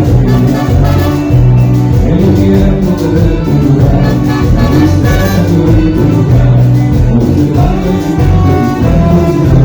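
Latin American dance music in a salsa style, played loud with a steady beat.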